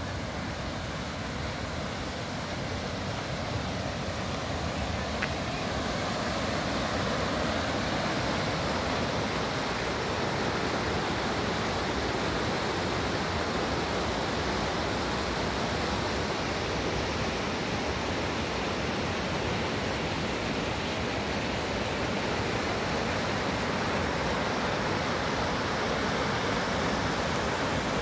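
River rapids rushing over and between boulders: a steady rush of white water that grows a little louder over the first several seconds, then holds.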